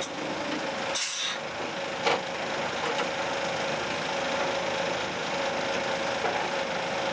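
Diesel locomotive engine running steadily, heard inside the cab, with a short hiss of air about a second in and a sharp click about two seconds in.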